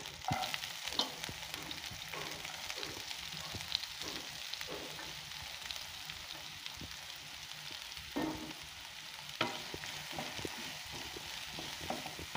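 Finely chopped onion frying in hot oil in a pan with fennel seeds and green chillies: a steady sizzle, broken by irregular scrapes and taps of a spatula stirring.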